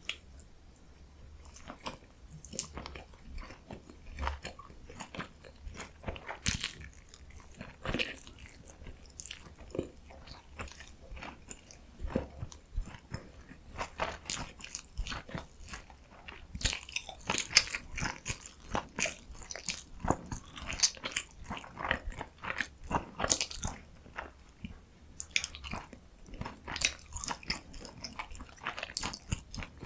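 Close-miked eating of kimchi and meat dumplings: bites and chewing, heard as many short sharp mouth and food sounds that come louder and closer together in the second half.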